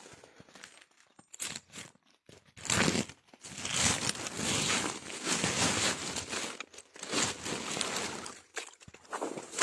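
Rustling and crunching in irregular bursts, starting about two and a half seconds in and running for several seconds.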